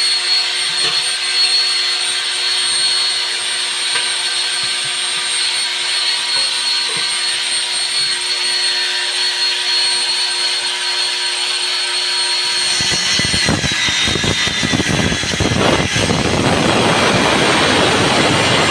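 Angle grinder running at a steady high whine after spinning up, then about 13 seconds in the disc bites into metal and a loud harsh grinding noise takes over as the whine fades.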